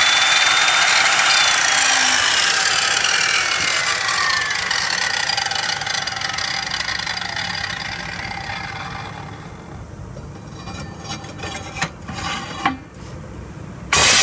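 Handheld circular saw with a segmented diamond blade running free, then winding down: its high whine falls in pitch and fades over several seconds. A few clicks and knocks follow as the saw is set on a stone slab, and the motor starts up again at full speed near the end.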